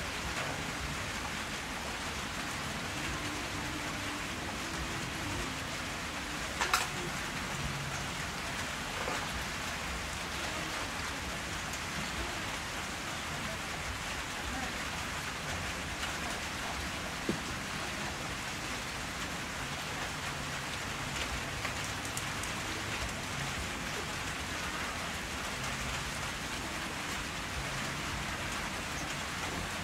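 Steady background hiss like rain, with a sharp click about a quarter of the way in and another a little past halfway.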